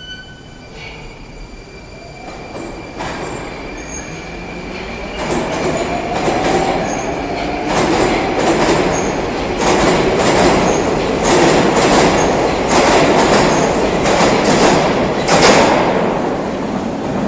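Moscow Metro train pulling out of the station. A rising motor whine comes as it accelerates, then the run of cars passes with a growing rumble and repeated clatter of wheels over rail joints, loudest in the second half.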